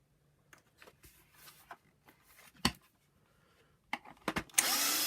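Small handling clicks and taps on a plastic housing, with a sharp knock about halfway through. Near the end a power drill runs for about a second, driving out a screw.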